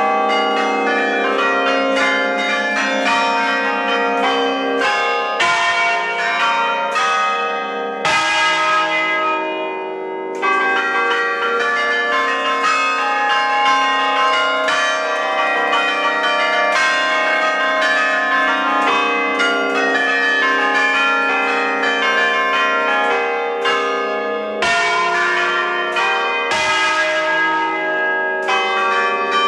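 The new ring of church bells in E-flat major, cast by Ecat, swinging and sounding together in rapid, overlapping strikes, loud and close in the bell chamber. The peal thins out briefly about eight seconds in and again near twenty-five seconds, then fills back in.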